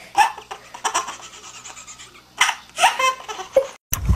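A baby laughing in several short bouts, cutting off suddenly near the end.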